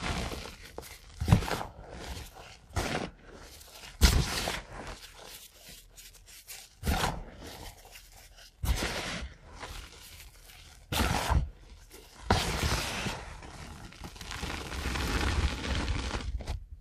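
Gym chalk being crushed and pressed by hand: a string of soft, powdery crunches with several sharper ones, then a few seconds of continuous rubbing and kneading through the loose powder near the end.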